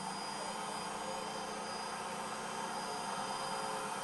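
Mercedes diesel engine of a 1985 Plaxton Mini Supreme coach running steadily as the coach moves slowly off, growing slightly louder.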